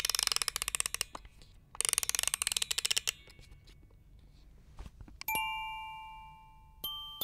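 A wind-up music box being wound, two bursts of rapid ratcheting clicks, then its brass cylinder mechanism starts to play: a few single chiming notes, each ringing and fading, near the end.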